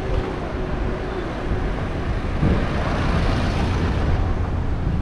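City street traffic: engines of passing cars and motor scooters over a steady low rumble, with a vehicle passing close about halfway through.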